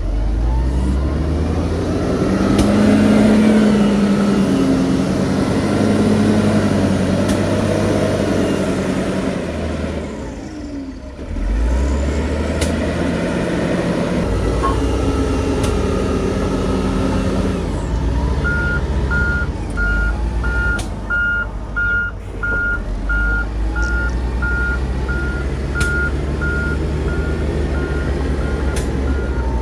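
Heavy diesel engines of earthmoving machinery running and revving under load. About two-thirds of the way in, a vehicle's reversing alarm starts beeping steadily, about one and a half beeps a second.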